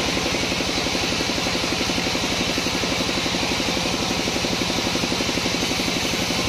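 Sawmill machinery running steadily: an engine with fast, even pulsing and a constant hiss over it.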